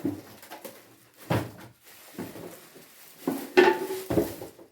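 Cooking pots being handled and set down: a few separate knocks and clanks, the loudest about three and a half seconds in with a brief ring.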